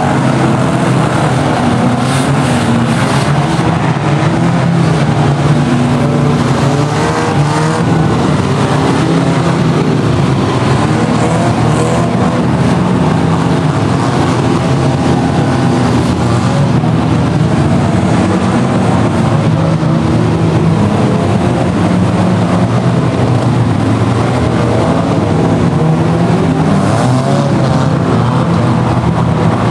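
Several pre-1970 banger cars' engines revving hard together, rising and falling as they push and ram one another in a demolition derby, with a few short crunches of impact scattered through.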